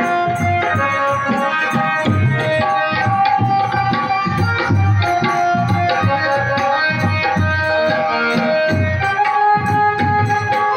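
Loud music with repeated drum beats under a melody of held notes.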